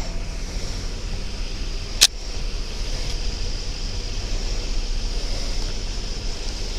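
Steady low rumble and hiss of outdoor noise on a body-worn police camera's microphone, with one sharp click about two seconds in.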